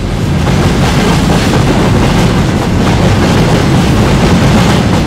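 Railway freight wagons rolling past close by, their steel wheels running on the rails with a loud, steady rumbling noise.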